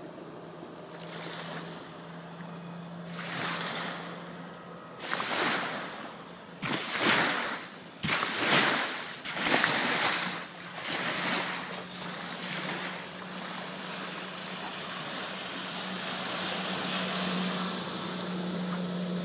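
Outboard motor of a Sibir 460 motorboat running at speed out on the water, a steady hum that grows louder near the end as the boat sweeps close by. In the middle, irregular loud rushes of noise cover it for several seconds.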